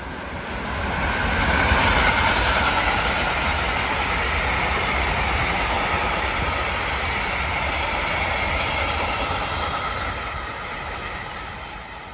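Electric-hauled freight train of open wagons passing at speed: the rolling noise of steel wheels on the rails builds over the first two seconds, holds steady as the wagons go by, and fades near the end as the train moves away.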